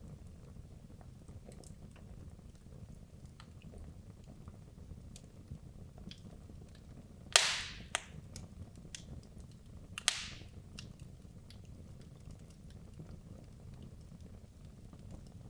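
Wood logs burning in a fireplace: a steady low rumble of the flames with scattered small crackles, and two loud pops from the burning wood about halfway through, a few seconds apart, each trailing off briefly.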